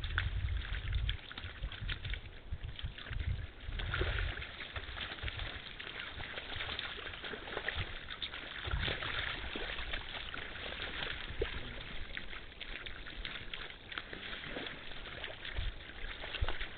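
Red deer hinds and calves wading, stepping and lying in a shallow muddy puddle: water splashing and sloshing, with occasional low thumps.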